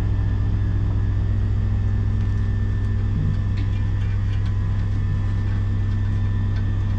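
Steady low machine hum, unchanging throughout, with a few faint clicks and knocks of tools on metal.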